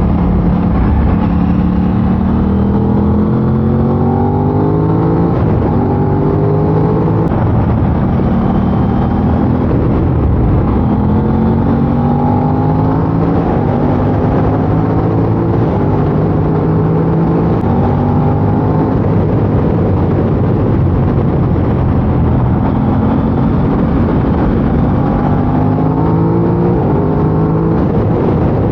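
Aprilia RS660's parallel-twin engine with its stock exhaust, accelerating through the gears: the revs climb, drop at a shift and climb again several times.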